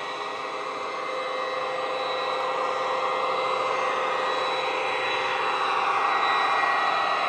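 ESU LokSound decoder in a Dapol OO gauge Class 68 model playing the Class 68 diesel engine sound through its speaker, a steady engine note with held whining tones that grows gradually louder as the model approaches.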